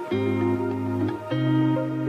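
Background music with sustained chords, changing chord near the start and again a little past halfway.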